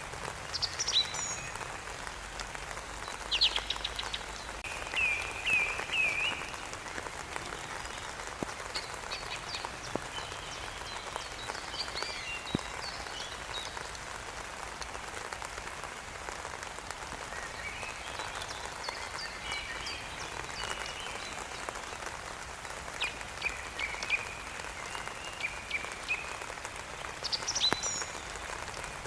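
Steady rain falling, with songbirds singing intermittently over it: short phrases of chirps and descending whistles, including a quick run of four rising chirps a few seconds in.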